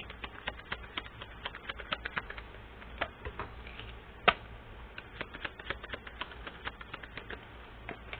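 Irregular run of light clicks and taps, several a second, with one sharper click a little past the middle.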